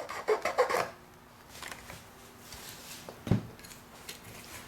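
Short rasping and rubbing strokes of work on a small wooden part, with one sharp knock about three seconds in.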